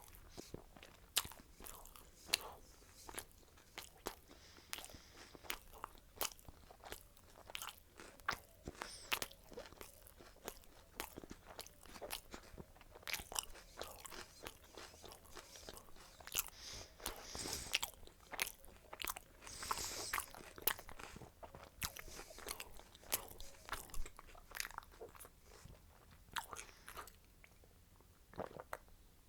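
A person eating close to the microphone: crunchy bites and chewing, heard as a continuous string of sharp, irregular crunches.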